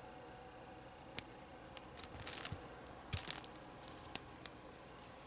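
Hard plastic model-kit parts being handled and fitted together: a few light clicks, and two short bursts of scraping and rustling about two and three seconds in, the second with a low knock.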